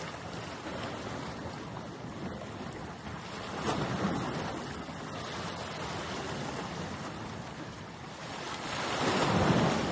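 Steady wash of waves and wind, with some wind buffeting the microphone; it swells slightly twice, once a little before halfway and again near the end.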